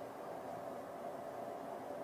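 Quiet room tone: a steady low hiss with a faint constant hum.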